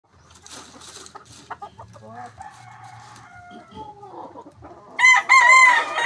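A rooster crows loudly starting about five seconds in, a long pitched call that carries on past the end. Before it there are fainter, drawn-out fowl calls.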